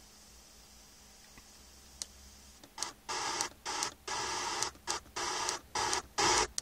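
Car FM radio tuned down the band in small steps. First comes a quiet stretch on an unmodulated carrier, with only a faint hum. Then, from about three seconds in, bursts of static hiss alternate with short silences as the audio mutes at each tuning step, getting louder near the end.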